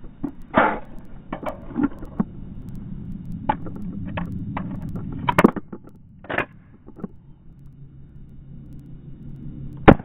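Wilson Combat CQB 1911 pistol in 9mm being reloaded and handled, with a series of sharp clicks and knocks, then a single loud shot just before the end.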